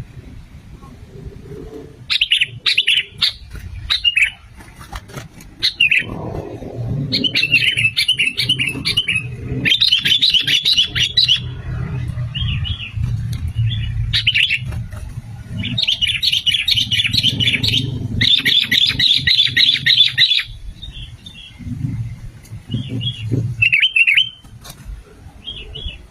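Sooty-headed bulbuls calling in bouts of rapid, bright chattering notes, several bouts between about two and twenty seconds in, then scattered single notes, over a low rumble.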